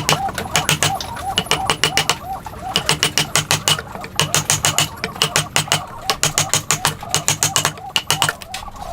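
Rapid sharp tapping in bursts of about a second, some six to eight taps a second, with brief pauses between bursts.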